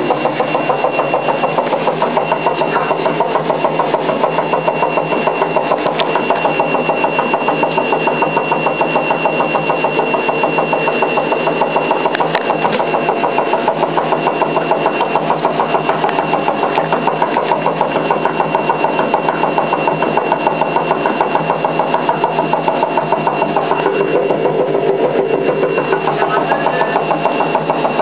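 Hoover Time Manager H130E washing machine running a wash with water in the drum: a steady mechanical drone from the motor and drum, pulsing fast and evenly, with a thin high whine held over it.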